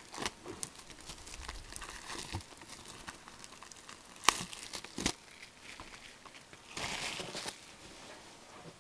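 Cardboard O-Pee-Chee hockey card box being handled and opened by hand: rustling and crinkling of cardboard and wrapping, with scattered sharp clicks. The loudest click comes about four seconds in, and a longer rustle about seven seconds in.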